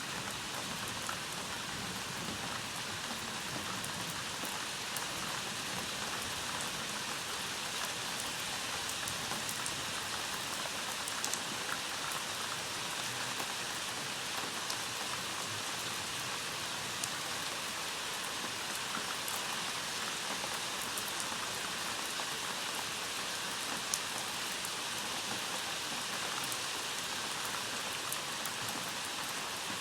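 Steady rain falling during a thunderstorm, an even hiss with scattered sharp ticks of drops striking a surface.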